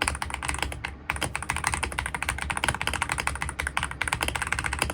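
Fast typing on a Royal Kludge R75 mechanical keyboard with MX Speed switches and aftermarket keycaps: a rapid, continuous run of keystroke clacks with a brief let-up about a second in.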